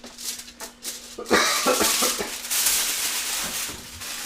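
Kitchen handling noises: a few clicks and knocks, then from about a second in a steady rustling, hissing noise that fades near the end.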